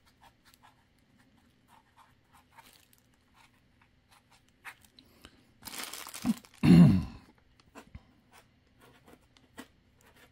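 Sharpie fine-point marker scratching in short strokes on foam packaging, with plastic bag wrap crinkling. About six to seven seconds in comes a loud rustle and handling noise.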